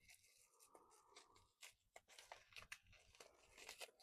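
Near silence, broken by faint, scattered crinkles and taps of packaging being handled and opened.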